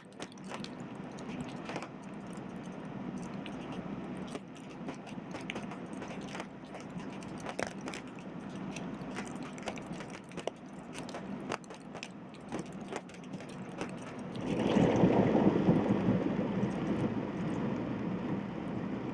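Heavy rain falling, with many sharp clicks of drops hitting nearby surfaces over a steady hiss. About two-thirds of the way through, a louder rushing noise sets in and holds.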